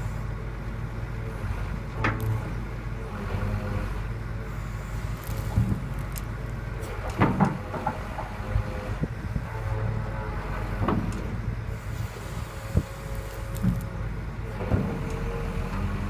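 Hitachi EX270LC excavator's diesel engine running steadily, with a few sharp knocks and clanks from the machine.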